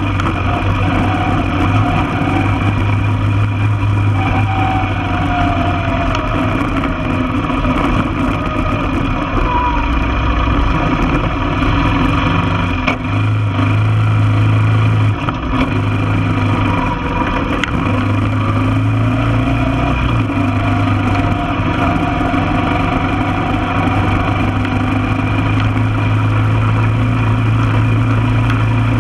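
1995 Honda Foreman ATV's single-cylinder four-stroke engine running under way, its note rising and easing several times as the throttle changes.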